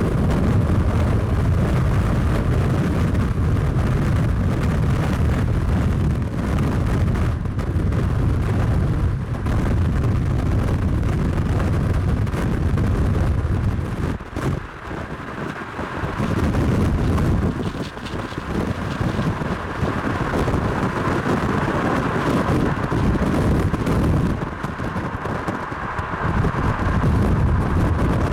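Loud, continuous low rumble of wind buffeting and a vehicle driving hard, dipping briefly about halfway through.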